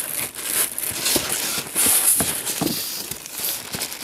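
Polystyrene foam packing blocks rubbing and scraping against the cardboard box while the black plastic wrap rustles, as a boxed amplifier is pulled out of its packaging; an irregular, noisy handling sound with short scrapes throughout.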